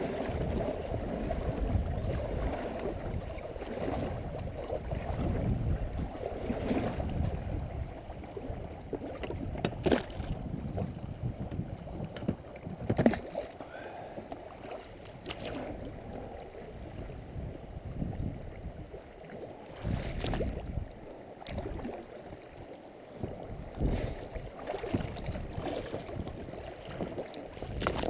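River water rushing and slapping against the tubes of an inflatable pontoon boat as it is rowed downstream, with wind buffeting the microphone. A few sharp knocks, likely the oars working, stand out, the loudest about 13 seconds in.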